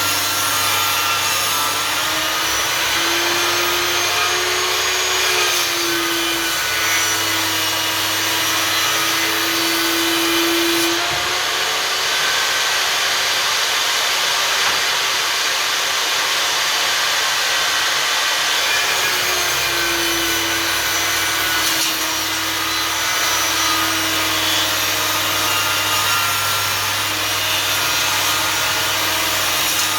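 Einhell table saw running and ripping a thick wooden board: a steady motor whine under continuous sawing noise, the tone shifting slightly as the blade takes the wood.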